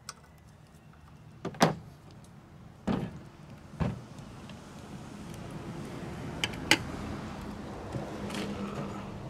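A few sharp clicks and knocks of tools and small engine parts being handled, over a low steady hum that slowly grows louder.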